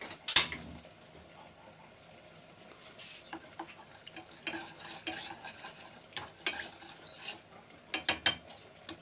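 Wooden chopsticks stirring rice and water in a stainless steel pot, knocking and scraping against the metal in scattered taps, with a quick run of taps near the end. A single sharp click just after the start is the loudest sound.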